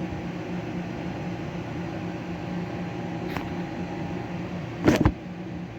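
Steady mechanical hum, like a fan or air conditioner running, with a faint tick about three and a half seconds in and a louder short clack about five seconds in.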